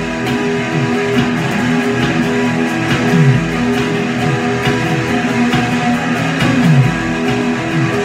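Electric guitar jamming an instrumental, holding notes with several slides down in pitch a few seconds apart.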